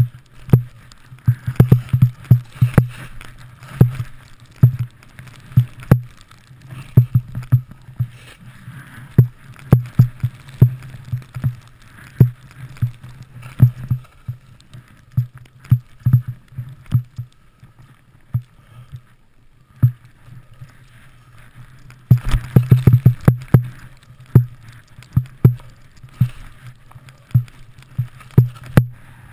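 Irregular knocks and thumps from a skier-worn point-of-view camera jolting as the skier bounces through deep powder, one to several a second over a faint hiss of skis in snow. They thin out briefly, then come in a dense flurry about three-quarters of the way through.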